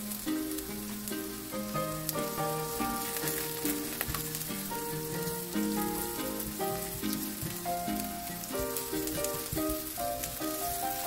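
Sliced onion, garlic and shallots sizzling steadily in vegetable oil in a non-stick frying pan, stirred with a silicone spatula. Background music with held notes plays throughout.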